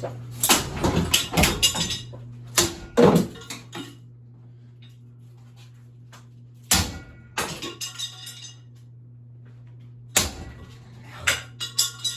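Metal ceiling fan blade arms clanking and rattling as they are picked up and dropped together, in four separate bursts of knocks, over a steady low hum.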